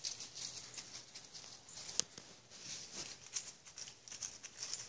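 Footsteps rustling and crunching through dry fallen leaves, uneven and irregular, with one sharp click about two seconds in.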